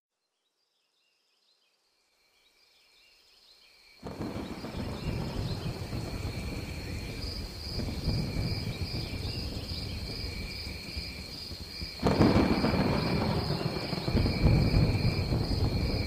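Rainforest storm ambience fading in: faint, high, steady insect chirping comes first. About four seconds in, the noise of a thunderstorm with rain and thunder enters suddenly, and it grows louder again about twelve seconds in.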